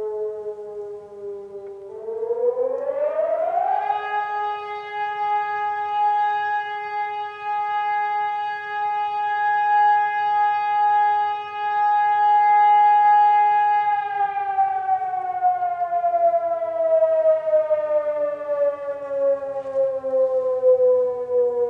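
Motor-driven civil-defence sirens sounding a fire brigade callout. One siren spins up over about two seconds, holds a steady howl for about ten seconds, then slowly winds down. A second, lower-pitched siren sounds alongside it and also falls in pitch near the end.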